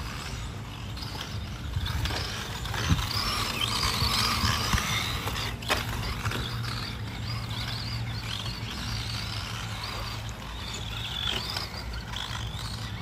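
Electric motor and gear drive of a Tamiya TT-02 RC car whining as it drives, the pitch rising and falling with throttle. There is one sharp tick a little before halfway.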